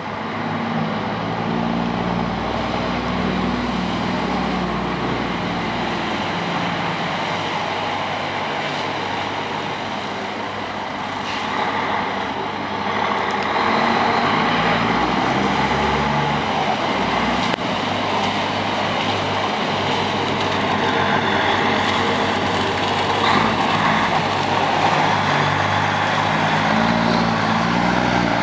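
DAF lorry's diesel engine pulling away and driving closer under throttle, its note shifting as it picks up speed and growing louder from about halfway through.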